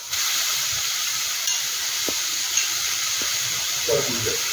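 Grated beetroot sizzling in hot oil with frying onion, green chilli and tomato in a kadai: a steady hiss that starts suddenly as the beetroot drops into the pan.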